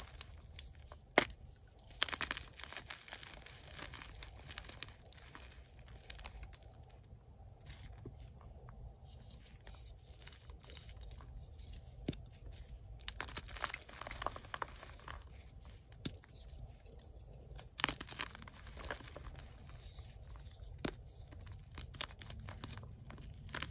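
Soft gym chalk blocks crushed and crumbled by hand: dry, irregular crunching and crackling, with sharp snaps as chunks break apart, the loudest about a second in.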